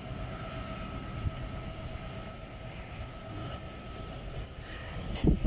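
Class 66 diesel-electric locomotive's two-stroke EMD V12 engine running at a distance as it slowly approaches: a steady low rumble with a faint steady whine. Wind buffets the microphone near the end.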